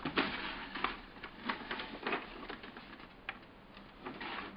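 Pages of a paper instruction booklet being turned and handled: a string of irregular rustles and crinkles.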